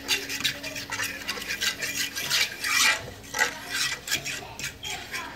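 A metal utensil stirring and scraping a bubbling roux of flour and hamburger grease around a skillet, in quick, irregular strokes.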